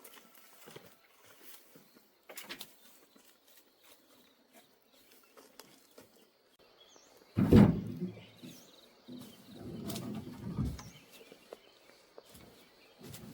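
One heavy thud about halfway through, then a longer low rumbling knock and scrape a couple of seconds later, over faint bird chirps.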